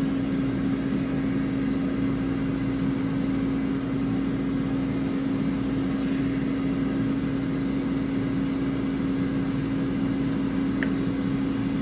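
Air fryer running while it preheats: a steady motor-and-fan hum with one constant tone.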